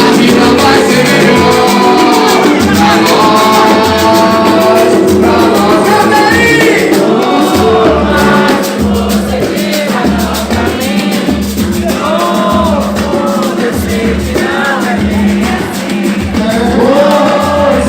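A Brazilian song performed by a band: a lead voice singing a gliding melody over a stepping bass line and dense, busy percussion.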